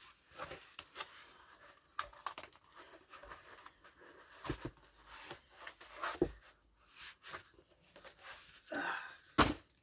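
Packaging being handled and torn open: irregular crinkling and tearing, with scattered knocks and a louder thump near the end.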